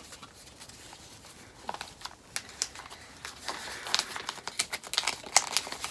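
Paper envelope being opened by hand: dry crinkling and tearing crackles, sparse at first, then quicker and busier over the last few seconds.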